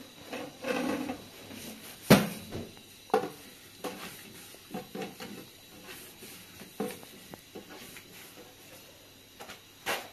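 A few sharp knocks and clatters of objects being handled and set down. The loudest comes about two seconds in, with others about a second later, near seven seconds and just before the end.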